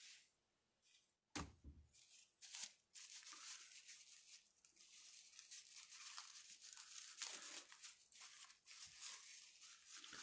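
Near silence with faint, irregular rustling, and a brief sharper sound about a second and a half in.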